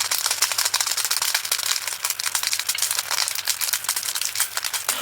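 Resin diamond-painting drills being poured, a dense patter of many tiny clicks like rain.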